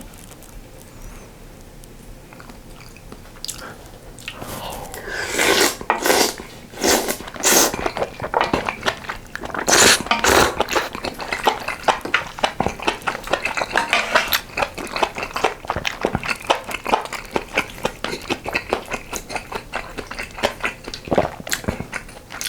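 Close-miked eating sounds of a person chewing and smacking a mouthful of spicy sausage stew with ramen noodles and rice. The sounds start about four seconds in as a rapid, uneven run of wet clicks and smacks.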